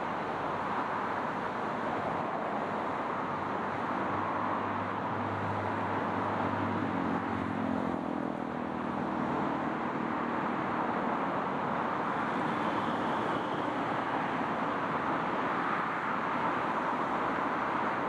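Steady outdoor rushing noise of river water and distant road traffic. For several seconds in the middle a passing vehicle's low engine hum rises over it and then fades.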